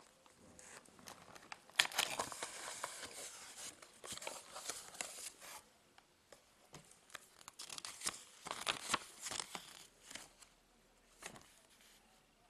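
Cardboard packaging and a paper instruction leaflet being handled during an unboxing: rustling and crinkling in two stretches, starting about two seconds in and again around eight seconds, with scattered sharp clicks.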